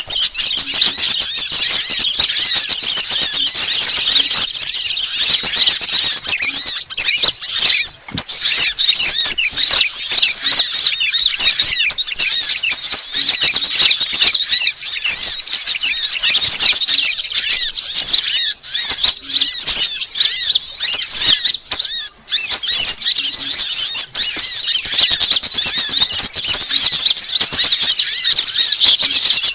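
Dense, continuous high-pitched chirping and twittering of several small songbirds layered together, a bird-luring (pikat) call track meant to draw wild birds in.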